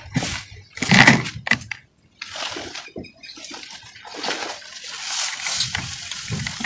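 Dry red dirt crumbled by hand: two crunchy bursts in the first second or so, then a longer, softer rustle of fine powder crumbling and trickling down.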